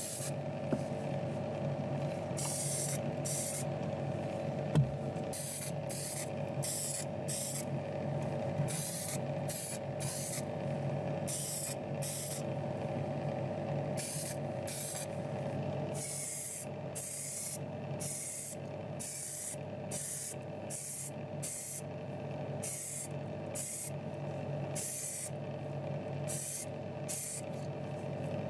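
Repeated short bursts of paint spray hissing as small diecast model parts are coated, over a steady motor hum.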